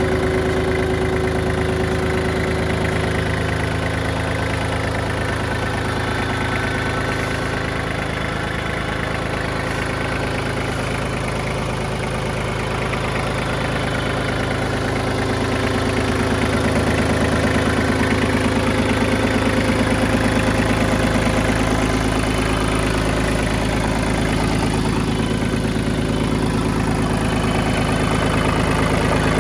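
Iseki TPC15 crawler tractor's three-cylinder diesel engine idling steadily.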